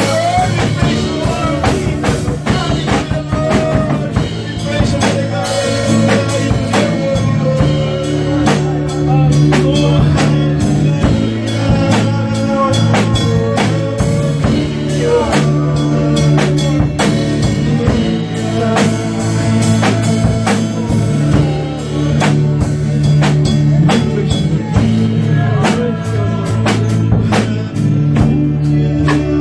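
Live worship band music: a drum kit keeping a steady beat under sustained keyboard chords, with a man singing into a microphone.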